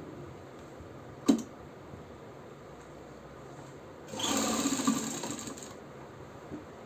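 Motorised Umbrella sewing machine running for under two seconds, stitching a sleeve onto a kurti. Before that comes a single sharp click.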